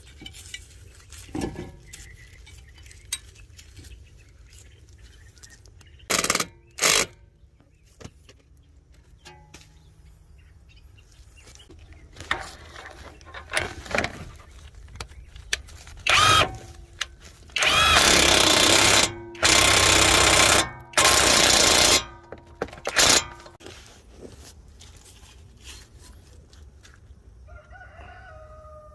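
Impact wrench run in short bursts: two quick pulls, then after a pause a cluster of longer runs of about a second each. Near the end a dog gives a brief falling whine.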